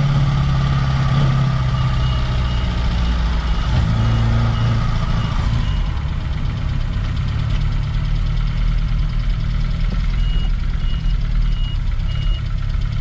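Reliant Regal's small four-cylinder engine running steadily as the car drives, its pitch shifting about four seconds in. A high, evenly repeated beeping comes in twice.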